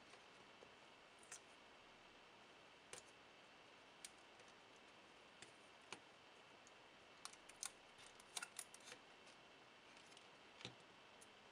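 Faint, scattered small plastic clicks and taps as 7-segment LED display modules are handled and their pins pressed into a circuit board, with a quick cluster of clicks about two-thirds of the way through.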